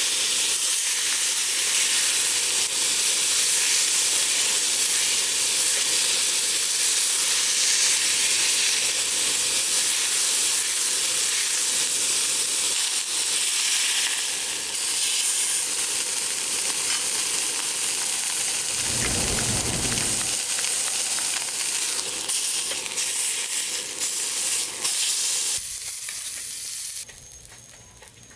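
Food frying in a pan: a steady, crackling sizzle, with a brief low thump about two-thirds of the way through. The sizzle cuts off sharply near the end.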